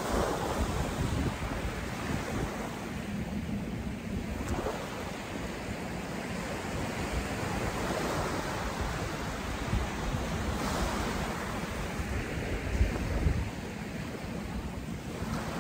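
Small waves breaking and washing up a sandy shore, swelling and easing every few seconds, with wind gusting on the microphone.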